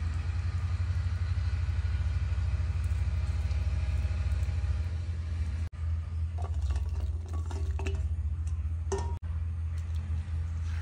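Steady low rumble. In the second half come light clicks and taps as onion petals are tipped from a steel bowl into the curd marinade and capsicum pieces are dropped in.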